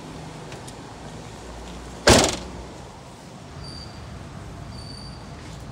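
Perodua Aruz's rear hatch swung shut and latching with a single loud slam about two seconds in.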